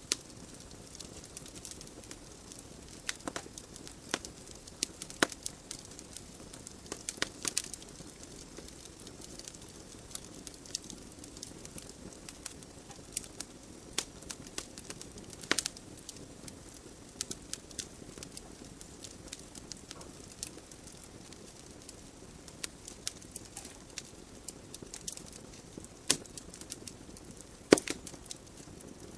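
Wood logs burning in a fireplace: irregular sharp crackles and pops over a steady soft hiss of the flames.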